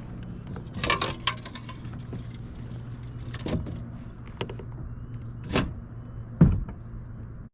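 Several sharp knocks and clatters against a plastic fishing kayak as gear and a caught bass are handled, over a steady low hum. The last knock, near the end, is the loudest.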